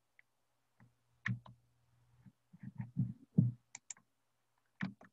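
A few sharp clicks scattered among faint muffled low knocks and murmurs, like desk and computer noise picked up by a video-call microphone, with a brief low hum in the first half.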